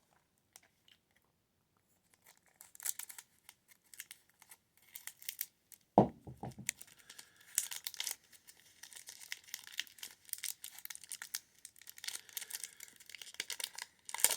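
Plastic wrapper of a baseball card pack crinkling and tearing as it is opened, then rustling as it is handled. There is a single loud thump about six seconds in.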